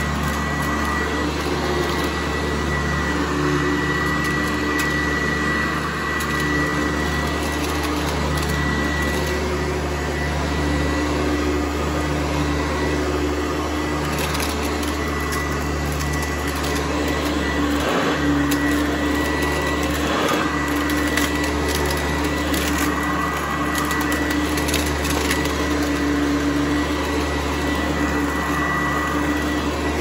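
Hoover Convertible U4101 upright vacuum running on carpet: a steady motor hum with a high whine. The sound dips briefly twice past the middle, and short ticks come now and then.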